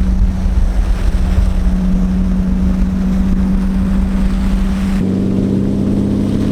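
Car engine running steadily while driving, heard from inside the cabin over low road rumble. About five seconds in, the engine note changes and a lower tone joins it.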